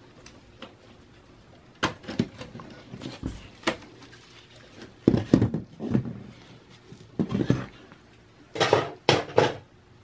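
Irregular plastic clicks, snaps and knocks from a desktop computer case being handled as its front bezel is unclipped from the chassis, some coming in quick clusters of two or three.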